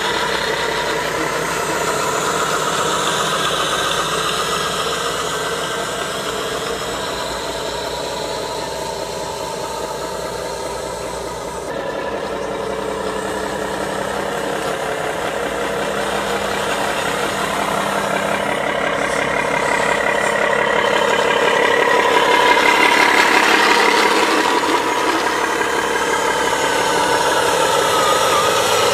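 Radio-controlled model trucks driving, with a steady engine-like running sound. The sound changes about twelve seconds in and grows louder in the second half.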